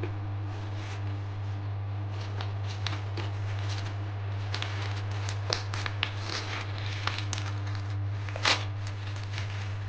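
Packaging being handled and opened: scattered rustles and clicks, with one louder rustle about eight and a half seconds in, over a steady low hum.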